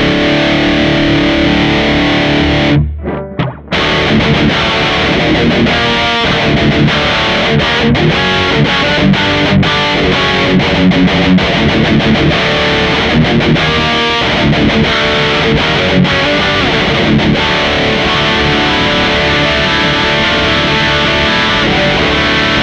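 Electric guitar played through a Mooer GE200 amp modeler on its 5153 setting, a model of the EVH 5150 III, with a high-gain distorted tone. A held chord breaks off about three seconds in, followed by heavy riffing with many quick stops, and held chords again near the end.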